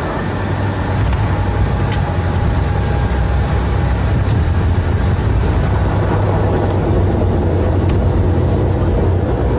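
ATR 42 twin-turboprop airliner's engines and propellers droning steadily on approach, heard from inside the aircraft, with a deep low hum under the noise.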